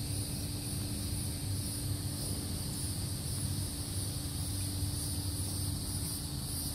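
Steady outdoor ambience: insects droning at a high pitch, over a low rumble and a faint steady hum.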